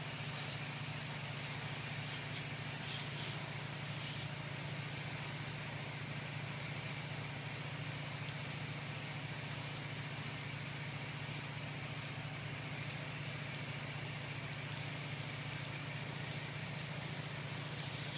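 Soft-wash sprayer pump and motor running steadily: a constant low hum with a faint high whine above it.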